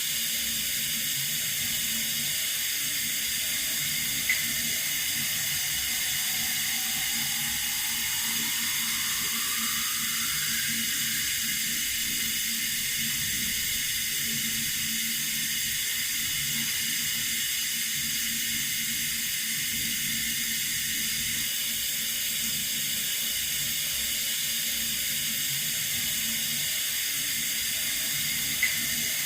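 Water running steadily from a tap, an even hiss. There is a brief click about four seconds in and another near the end.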